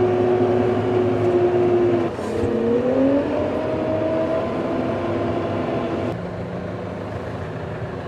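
New Holland tractor's diesel engine running, heard from inside the cab. About two seconds in its note dips and then rises as the engine revs up, and it eases off a little around six seconds in.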